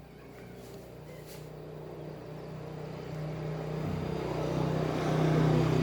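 A motor vehicle's engine running as the vehicle approaches, growing steadily louder and loudest near the end.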